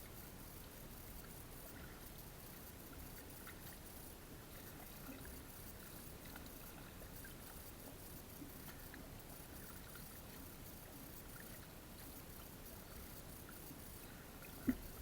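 Faint water sounds and small splashes as a gill net is handled in the water, with one sharp knock near the end.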